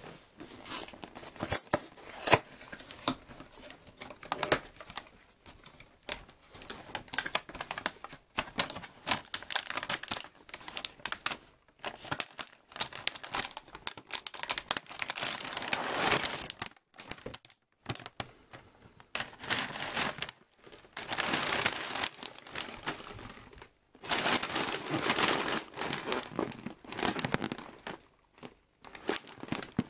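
Cardboard cereal box being opened and its plastic inner bag handled, crinkling and rustling in irregular bursts with some tearing. The crinkling comes in louder spells in the second half.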